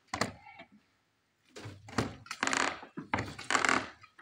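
Construction work noise of a steel rebar cage and a shovel in sandy soil: a knock near the start, then, after a brief quiet gap, a sharp knock followed by two long rough scrapes.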